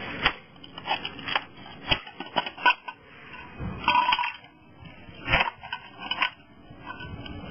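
A PowerScraper's long-handled metal blade jabbed under ceramic floor tiles. It makes an irregular run of sharp scrapes, knocks and ceramic clinks as the tiles break loose from the floor.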